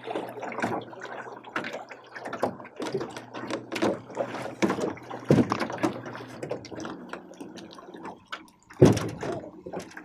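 Small waves lapping and slapping against the side of an aluminum jon boat, with many irregular splashy knocks and one louder thump about nine seconds in.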